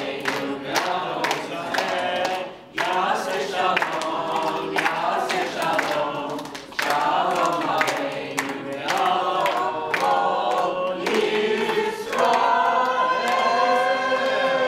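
A mixed group of voices singing a Havdalah song together, with hand-clapping in time.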